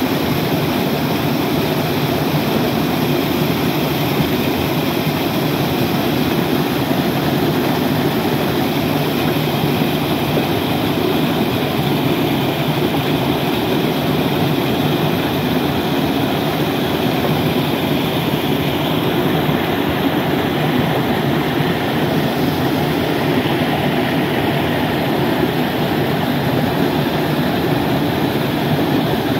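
Steady, loud rush of flowing stream water, unchanging throughout.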